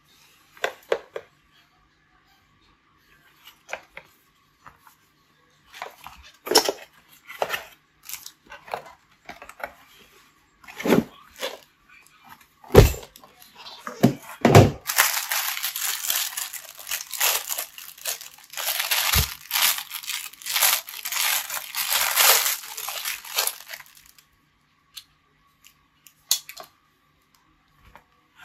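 Laptop accessories being handled: scattered knocks and taps as power adapters and parts are set down, then about nine seconds of plastic packaging crinkling and rustling as a power cord is unwrapped from its plastic bag.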